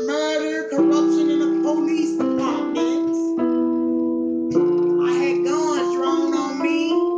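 Electronic keyboard playing sustained gospel chords that change every second or so, with a woman singing over them.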